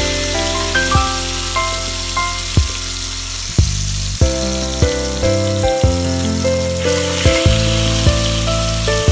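Tilapia steaks frying in hot oil, a steady sizzle under background music. The sizzle grows louder about seven seconds in, as a second raw piece goes into the oil.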